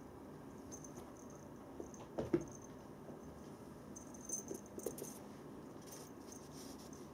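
Bengal kitten playing with a toy mouse: a few light knocks and clicks over a quiet room background, the loudest pair about two seconds in and another cluster at four to five seconds.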